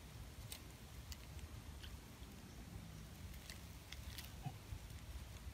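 Hands working a folding net fish trap in shallow pond water: a few faint, scattered clicks and small splashes over a low, steady rumble.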